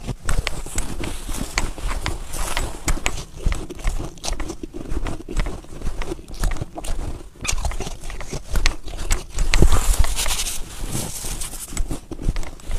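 Fresh snow crunching close to the microphone as it is bitten and chewed and squeezed in gloved hands: a quick, irregular run of crisp crunches, with a louder, noisier stretch about ten seconds in.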